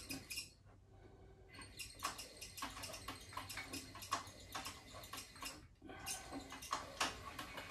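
Cowboy CB-4500 heavy-duty sewing machine stitching thick leather slowly with heavy thread, heard as faint, irregular clicks of the needle strokes. The clicks begin about a second and a half in and pause briefly around six seconds in.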